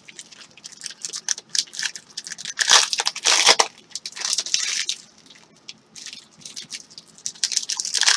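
Glossy trading cards sliding and flicking against each other as a stack is sorted by hand: a run of short swishes and ticks, loudest about three seconds in and briefly quieter past the middle.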